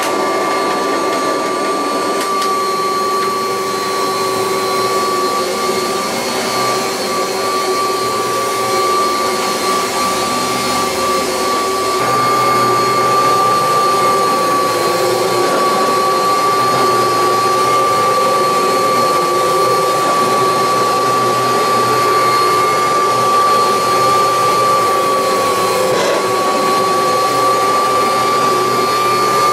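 A 1986 Kirby Heritage 2 upright vacuum cleaner running steadily while it vacuums carpet, with a constant high whine over its motor noise. It gets a little louder about halfway through.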